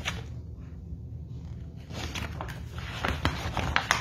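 Paperback picture book being handled and its pages turned: a run of short papery rustles and clicks, densest in the second half, over a steady low hum.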